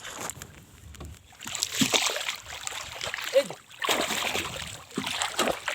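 Water splashing and swishing around a small boat being moved forward, in two long stretches with a short lull between.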